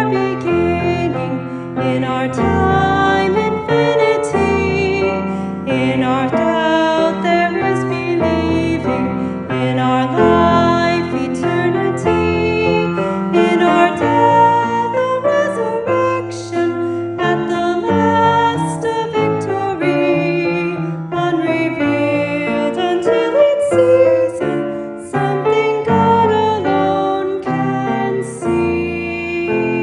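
Piano music with a voice singing over it.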